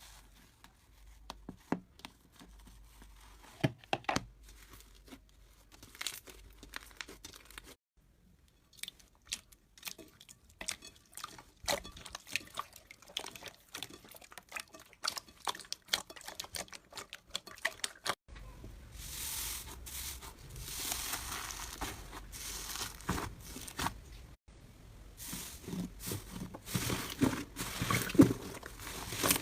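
Slime being squeezed, poked and stretched by hand, with scattered sharp crackles and pops. About two-thirds of the way through, the crackling turns denser and louder.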